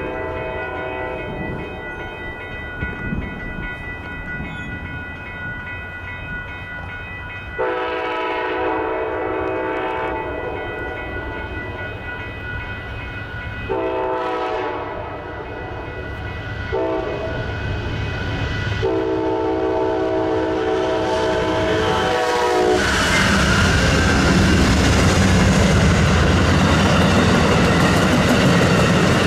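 Diesel locomotive's multi-chime air horn sounding four blasts in a long, long, short, long pattern, the standard grade-crossing signal. The locomotive then passes close, its engine and wheels on the rail drowning out everything else and getting louder toward the end.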